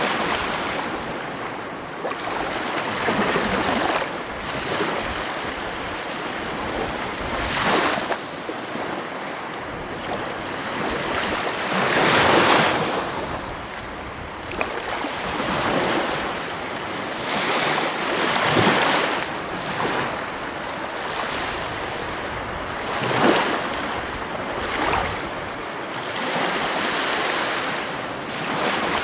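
Heavy ocean waves breaking on the shore in a steady wash, with louder surges every few seconds, the biggest about halfway through and again near the end. Some wind buffets the microphone.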